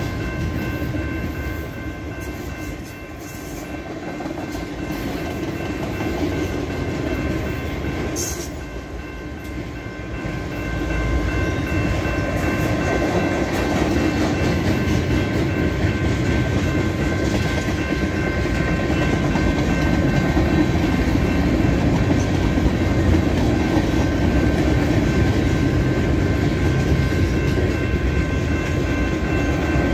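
Freight cars of a long manifest train (autoracks, a tank car, boxcars) rolling past on steel rail, with the steady noise of wheels on track. It dips briefly twice and grows louder about eleven seconds in. A few thin, steady high ringing tones run over it throughout.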